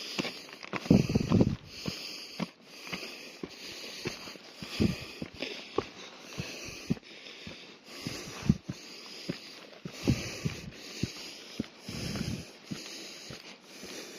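A person breathing hard in repeated heavy breaths about once a second, with short knocks between them. A few heavier gusts come in near the start and again around ten and twelve seconds in.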